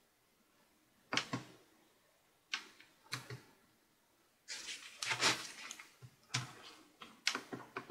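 A Lenovo ThinkPad X230's touchpad buttons and keys being clicked by a gloved hand: short groups of clicks, with a longer, busier stretch of clicking and rubbing near the middle.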